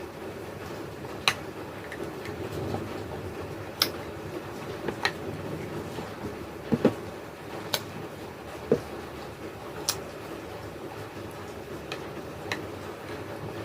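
Crunchy dried clay being bitten and chewed close to the microphone: sharp, separate crunches every second or two, with two close together about seven seconds in, over a steady low background hum.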